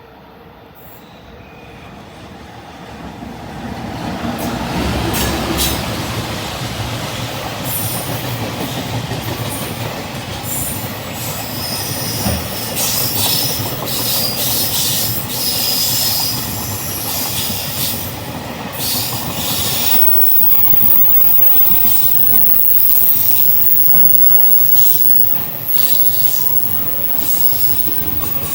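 EF210 electric locomotive and a long rake of Koki container wagons passing, growing loud over the first few seconds. Wheels clatter over the rail joints while the flanges squeal high on the curve.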